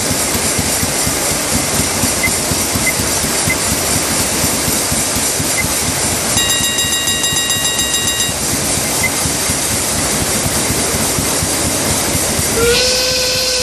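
Cartoon machine sound effect after start-up: a steady chugging hiss, with a high steady tone for about two seconds midway and a lower whistle-like tone starting near the end.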